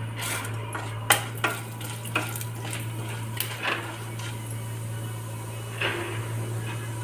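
A wooden spatula stirring urad dal in hot ghee in a non-stick kadai, knocking and scraping against the pan several times, with a light sizzle, over a steady low hum.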